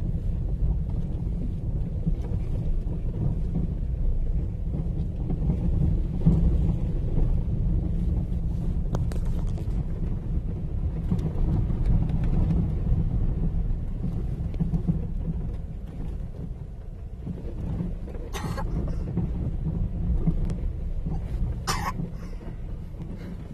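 A car driving over a rough, flooded dirt street, heard from inside the cabin: a steady low rumble of engine and tyres on the uneven road. Two short, sharper sounds come about three seconds apart near the end.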